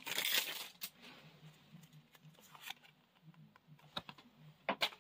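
Pokémon trading cards handled in the hands: a brief sliding rustle of cards at the start, then soft scattered clicks and ticks of card edges, with two sharper clicks near the end.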